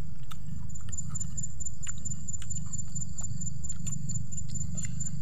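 A steady low rumble with scattered small clicks and eating noises as hands pick food from a bowl and a boy chews. A thin, high, pulsing whine runs underneath.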